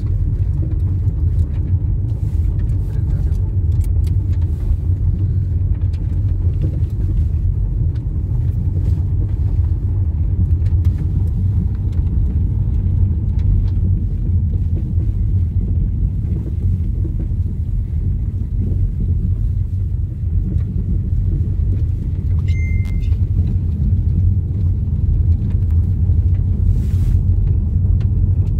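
Steady low rumble of a car heard from inside the cabin: engine and tyre noise while driving on an unsealed gravel road, with faint scattered ticks.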